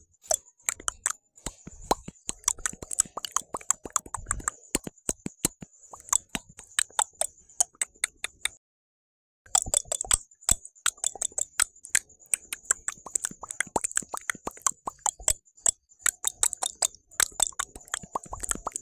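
Mouth sounds: rapid, irregular wet clicks and pops from the lips and tongue, over a steady high hiss. The sound cuts out completely for about a second midway.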